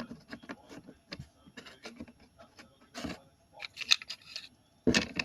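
Small plastic toy pieces, such as building blocks, being handled and set down: irregular light clicks and knocks, with a few louder ones about three seconds in and near the end.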